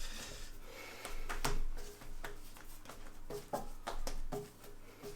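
Sourdough baguette dough being stretched and folded by hand: a few soft, scattered slaps and knocks, the clearest about a second and a half in.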